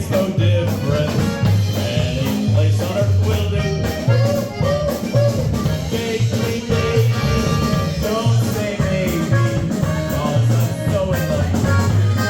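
Music with a steady, repeating bass line under a melody line.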